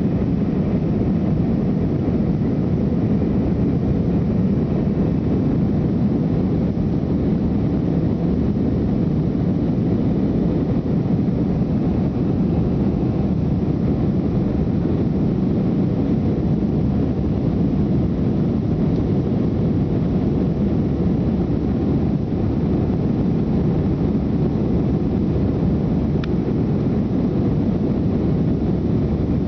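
Steady roar of jet engines and airflow heard inside the cabin of an Airbus A320-200 in flight, an even low rumble that does not change.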